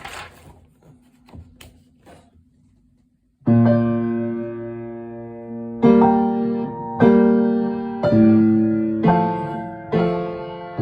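Piano duet: a chord fades out with a few faint clicks, a brief pause, then a loud chord is struck about three and a half seconds in and left to ring, followed by chords struck about once a second.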